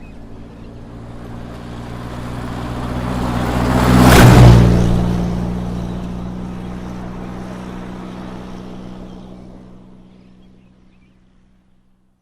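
School bus driving past on a road: its engine hum and tyre noise swell to a peak about four seconds in, then fade away as it moves off.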